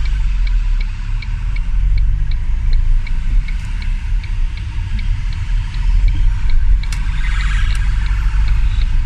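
Car cabin noise while driving: a steady low road and engine rumble, with a regular light ticking about three times a second.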